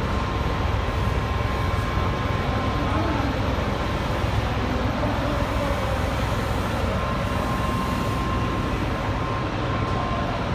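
Vertical form-fill-seal packing machine running: a steady mechanical rumble with a faint, thin whine that fades out and comes back partway through.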